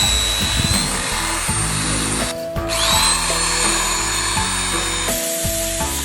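Handheld electric power tool's motor whining at high pitch, stopping briefly about two and a half seconds in, then spinning up again and cutting off near the end, with background music.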